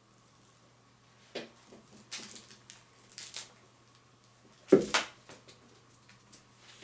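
A kitten's paws scuffling and rustling on a cloth pillow cover a few times, then a heavy thump and a second knock about five seconds in as it jumps down off the surface.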